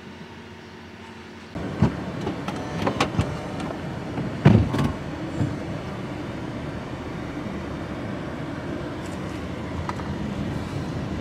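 Steady outdoor background noise with a low rumble, which steps up about a second and a half in. Several sharp knocks and clatters follow over the next few seconds, the loudest about four and a half seconds in.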